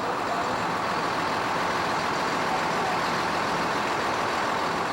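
Steady road traffic noise, an even wash of passing vehicles with no single event standing out.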